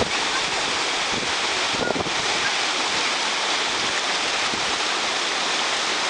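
Waterfall and stream water rushing steadily, an even hiss.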